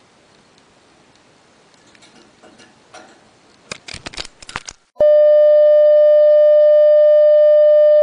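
A budgerigar's beak pecking and tapping against the camera: a quick run of sharp clicks. About five seconds in, a loud steady electronic test-card tone cuts in and holds.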